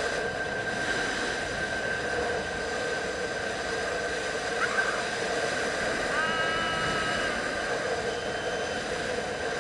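Zip-line trolley pulleys rolling at speed along the steel cable: a steady high whine over a rushing noise. About six seconds in, a second, higher whine joins briefly for about a second.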